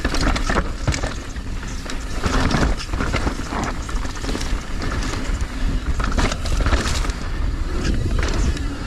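Mountain bike descending a loose, dusty, blown-out rocky trail: tyres crunching and sliding over dirt and rock, with the bike clattering at many small irregular impacts and a steady rumble.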